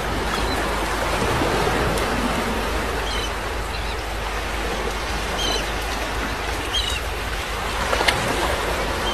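Steady rush of water running over the edge of an infinity pool, with a few short, faint, high chirps and a light tap near the end.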